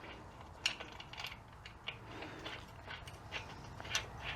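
Hand ratchet clicking in scattered, light strokes as it backs out the bolts holding the front pump of a 42RE automatic transmission.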